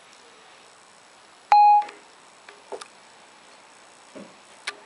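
A single short beep from an iPhone 4's Siri dictation, about one and a half seconds in: the tone marking that it has stopped listening, before the spoken words come up as text. A few faint clicks follow.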